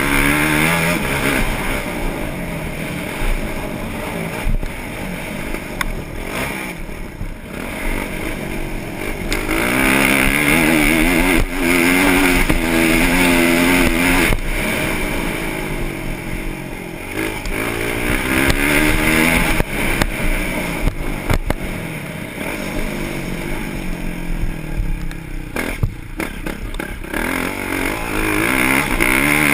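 Motocross bike engine heard up close from the onboard camera, revving hard up through the gears and backing off again and again as the rider races the lap. The throttle drops off briefly about a quarter of the way in and again for a couple of seconds late on.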